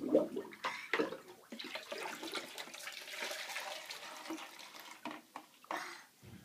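Bathwater splashing and pouring from a plastic toy watering can and funnel: a few splashes near the start, a steady trickle for several seconds, then more splashes about five seconds in.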